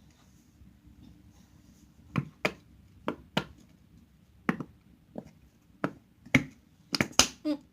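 Slime being worked by hand, giving sharp, irregular snapping pops: sparse from about two seconds in, then coming faster near the end.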